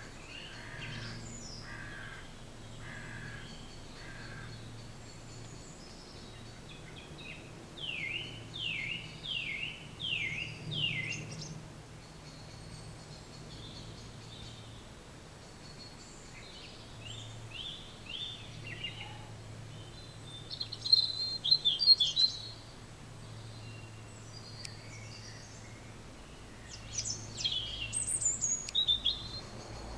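Several songbirds singing in separate phrases: runs of quick falling whistled notes and sharp chirps, the loudest a little past the middle. A steady low hum runs beneath.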